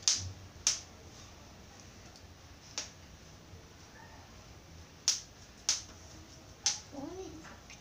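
About six sharp, irregularly spaced clicks as a small clip-on lavalier microphone and its clip are handled in the fingers.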